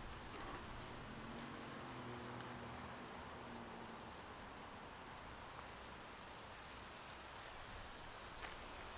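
Steady high-pitched trilling of an insect chorus, continuous and unbroken.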